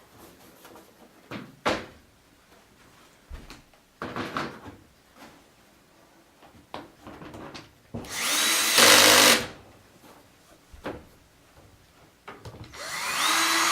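Power screwdriver driving screws to fasten the back cover of a flat-screen TV, its motor whining in two runs of about a second and a half each, one past halfway and one near the end. Light knocks of the plastic cover being handled come before them.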